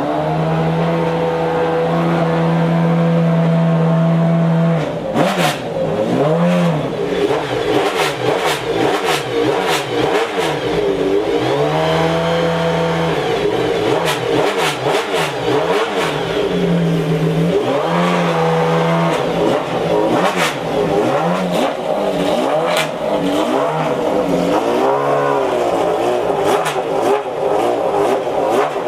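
McLaren F1 GTR's naturally aspirated BMW V12 warming up: held at raised revs for about five seconds, then blipped up and down over and over, with brief holds in between. Sharp cracks are mixed in with the revving.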